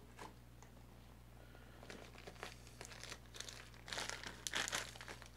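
Plastic postal mailer bag crinkling and tearing as it is cut open with a folding knife: quiet at first, then a dense run of crackles that gets louder in the second half.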